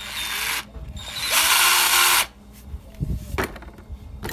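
Battery-powered cordless drill run in two short bursts about a second apart, the motor whirring up and stopping each time, followed by a light click from handling.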